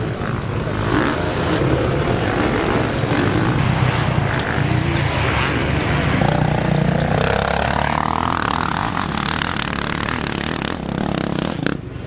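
Motocross motorcycle engines of the 250–450 cc class revving on a dirt track, their pitch rising and falling with the throttle. Partway through, one engine climbs steadily in pitch as it revs up.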